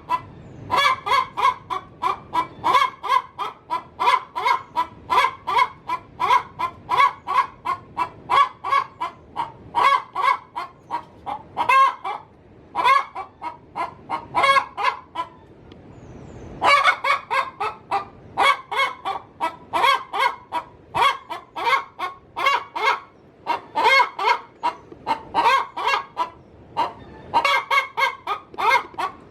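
Domestic hen cackling in a long run of short calls, two to three a second, with a brief break just past halfway: her laying call, given as she is about to lay an egg.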